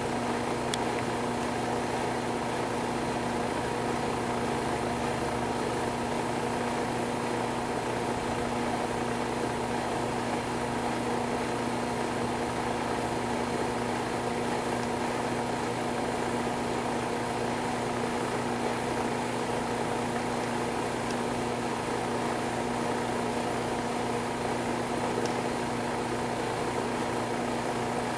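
A steady, unchanging machine hum with a constant low drone.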